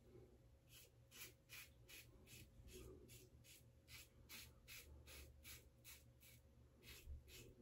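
Faint, quick scrapes of a 1978 Gillette Black Beauty double-edge safety razor with a Gillette Nacet blade cutting lathered stubble on the cheek, about two or three short strokes a second, on the second pass.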